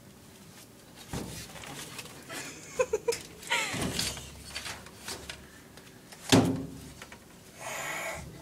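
Knocks, thumps and rattles of household items being shifted around in a cluttered cupboard, with the sharpest thump a little past six seconds in.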